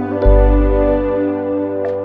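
Background music: sustained keyboard chords over a deep bass line, with a new bass note coming in about a quarter of a second in.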